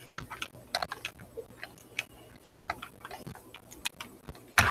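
Irregular small clicks and taps from handling objects close to the microphone, with one louder knock near the end.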